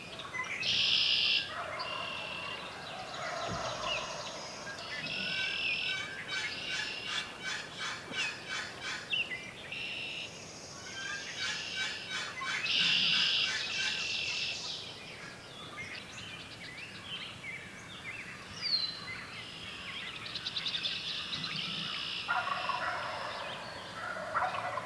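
Spring woodland birds singing, a dense mix of chirps, trills and short falling whistles, with a wild turkey gobbling among them.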